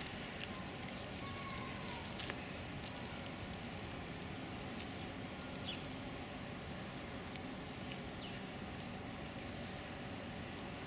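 Steady outdoor background noise with a few faint, short, high bird chirps scattered through it, including three in quick succession about nine seconds in.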